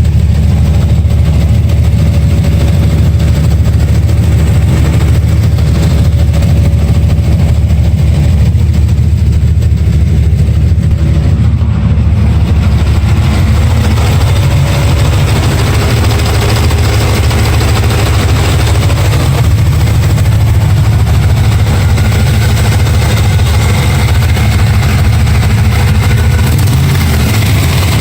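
Vehicle engine idling steadily, recorded to track down a ticking noise from it.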